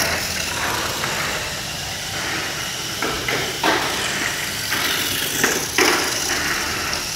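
Tamiya Mini 4WD car running on a plastic multi-lane track: a steady high-pitched whir of its small electric motor and gears, with several sharp clacks from the car striking the track walls, bunched a few seconds in and again near the end.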